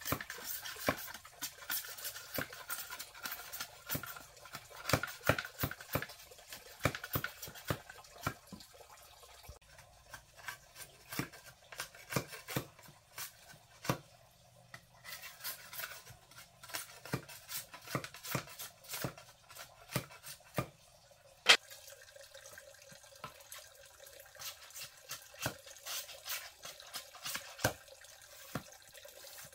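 A knife splitting and shaving thin bamboo strips by hand, making irregular scraping and sharp clicks of the blade on the bamboo. One crack, a little past two-thirds of the way through, is much louder than the rest.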